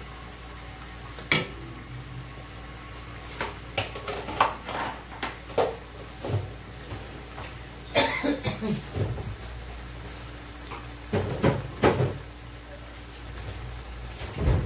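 Kitchen clatter: a wooden spatula knocking against a frying pan, with other scattered knocks and clinks of pots and utensils, a few sharp ones standing out and several bunched together about halfway through and again a few seconds later. A steady low hiss runs underneath.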